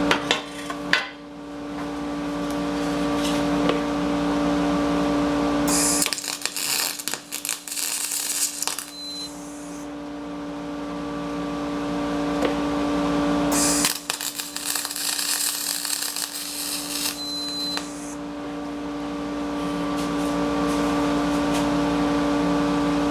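Aluminum MIG welding with a spool gun (Thermal Arc 211i with a Tweco spool gun): two crackling arc bursts of about three seconds each, about six seconds in and again about fourteen seconds in, building up a spot on the skid plate gouged by the chain. A steady machine hum runs between them.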